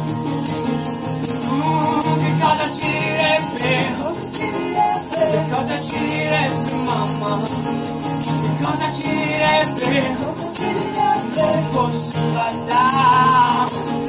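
Acoustic band music: several acoustic guitars strumming, with a hand shaker jingling in time.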